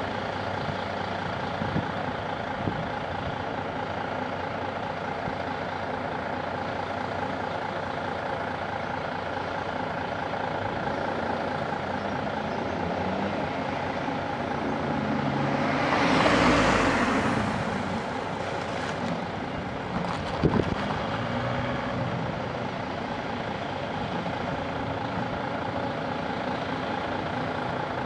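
Diesel engines of a Hitachi Zaxis 170W wheeled excavator and a Mercedes Actros dump truck running steadily. Just past halfway a rushing noise swells and fades over about two seconds, and a couple of sharp knocks follow soon after.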